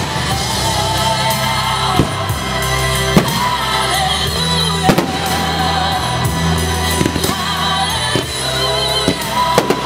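Fireworks bursting in the air, several sharp bangs a second or two apart, over continuous music.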